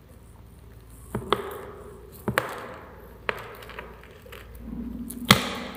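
About six sharp clicks and knocks at irregular spacing, each with a short ringing tail. The loudest comes near the end, over a brief low hum.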